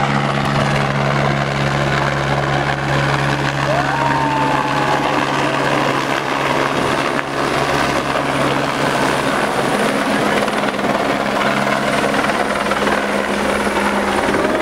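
A light helicopter flying past close by, its rotor and engine running loudly and steadily.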